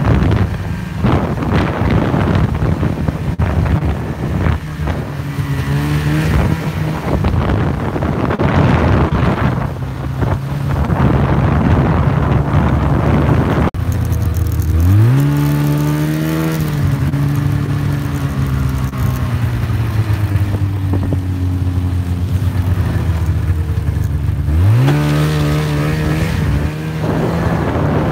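Snowmobile engine running at speed, its pitch climbing sharply twice, about halfway through and again near the end, as the throttle is opened. Wind noise rushes over the phone's microphone, heaviest in the first half.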